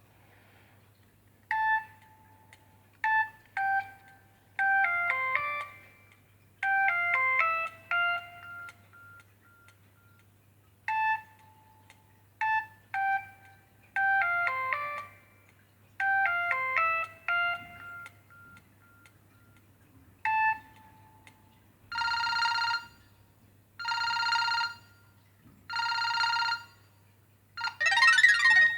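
Samsung SGH-B100 mobile phone playing its ringtones through its speaker: a short electronic melody played twice, then three long buzzing rings about two seconds apart, and a different ringtone with sweeping notes starting near the end.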